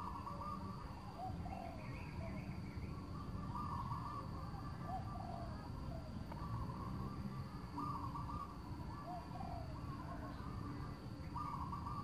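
Wild birds calling over and over with short, curving notes, several at a time, over a low rustling and brushing of undergrowth as someone pushes through it on foot.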